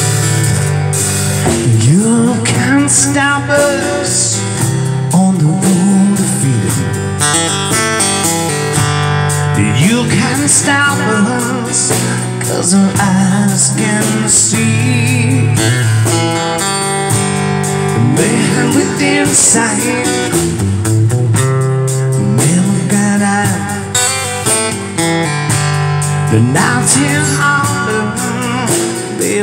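Live blues-style band music: strummed acoustic guitar layered with looper-pedal parts including a low bass line, over a hand drum and drum kit, with a bending lead melody line on top.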